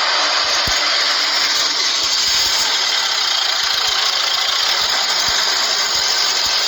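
Motorcycle engine running steadily at idle, just after being started following an oil change with an oil additive.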